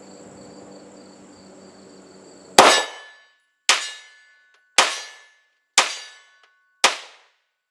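Five 9mm shots from a Glock 19 Gen 5 pistol, about one a second, starting a little over two seconds in, each with the clang of the bullet striking a steel target. Crickets chirp steadily before the first shot.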